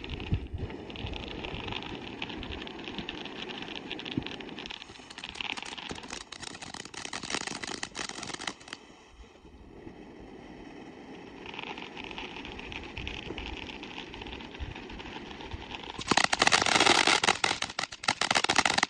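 Orange Float ground fountain firework spraying sparks with a continuous hissing crackle. It dips quieter around the middle and is loudest and densest over the last three seconds.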